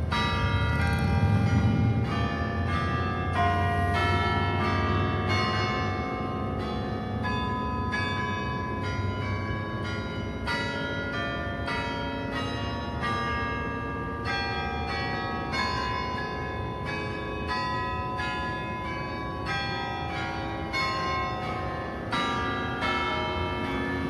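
Several church bells ringing a continuous peal, quick strokes about two a second overlapping so that each tone rings on under the next.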